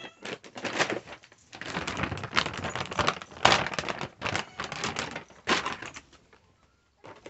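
Plastic bag rustling and crinkling as it is handled, in quick irregular crackles, loudest about three and a half seconds in and stopping about six seconds in.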